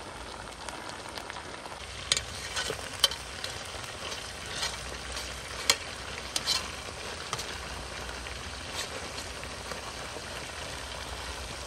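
Green-masala-coated chicken pieces deep-frying in hot coconut oil, now about half cooked: a steady sizzle with sharp pops and crackles scattered through it, the loudest about two to three seconds in and again around six seconds in.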